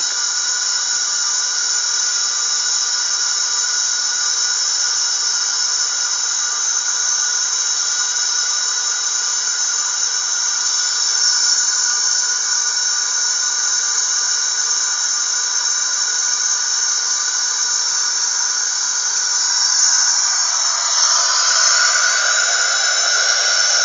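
Womb-sound recording played back: a steady hissing whoosh with thin, high ringing tones over it and no low end, the kind of white noise used to soothe a newborn.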